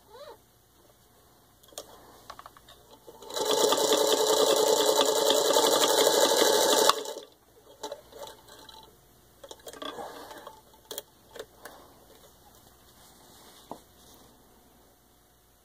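1950 Singer 221-1 Featherweight sewing machine running at speed, stitching through four layers of denim. It runs for about three and a half seconds with a fast, even clatter and stops suddenly, with a few faint clicks and rustles before and after.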